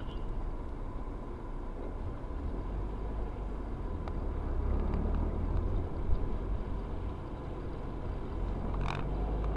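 Steady low road and engine rumble of a car driving at highway speed, heard from inside its cabin, with a faint click about four seconds in and a brief knock about six seconds in.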